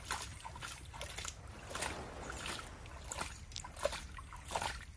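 Hand scooping and splashing water over a mud-caked metal mask statuette to rinse it: irregular small splashes and trickles in shallow muddy water.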